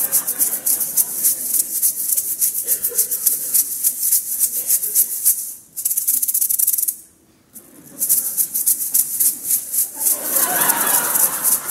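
Percussion shakers played in a fast, even rhythm, a dense crisp rattle that stops for about two seconds in the middle and then starts again.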